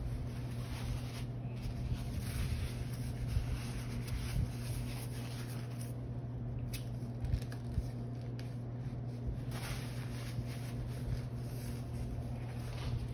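Steady low hum with light rubbing and handling noise and a few small clicks, as a plastic-lidded tea tumbler is handled on a table.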